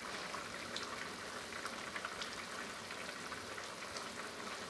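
Coconut-milk curry sauce boiling hard in a frying pan: a steady bubbling with scattered small pops.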